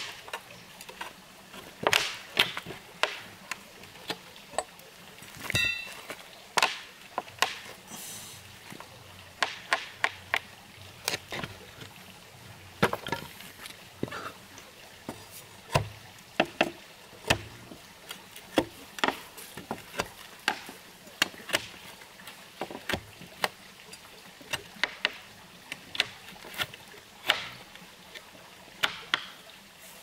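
Irregular sharp strikes of a hand tool chopping into wood, about one or two a second, as the base of a wooden house column is squared.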